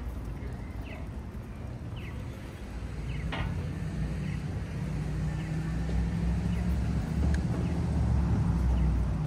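City street sound dominated by a motor vehicle's engine, a low steady rumble that grows louder from about three seconds in, with scattered light clicks over it.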